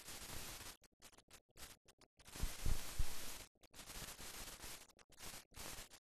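Hiss and crackle of an old film soundtrack, cutting in and out abruptly, with a few low thumps about two and a half to three seconds in.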